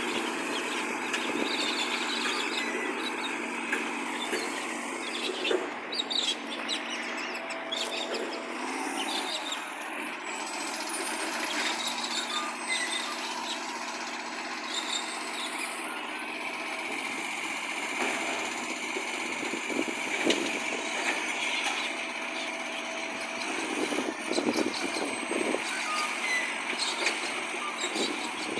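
Garbage truck engine running steadily, loud from an exhaust leak, with occasional knocks and rattles.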